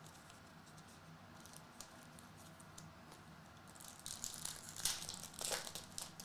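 Trading card pack foil wrapper crinkling as cards are handled, in a few short crackly bursts starting about four seconds in.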